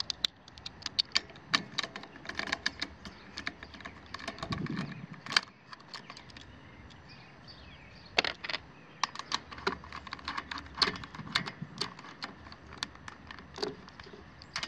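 Quarter-inch drive ratchet with a 10 mm socket clicking in quick runs of small ticks as it loosens fasteners, with a pause of a couple of seconds in the middle.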